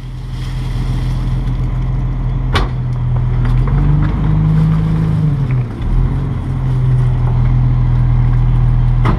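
Rear-loader garbage truck's diesel engine running steadily, revving up briefly about four seconds in before settling back. A sharp knock sounds a few seconds in, and another near the end.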